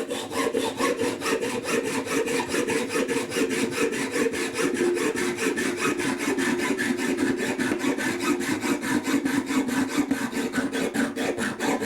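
Hacksaw cutting through the metal channel of a door sweep, in quick, even back-and-forth strokes of about five a second.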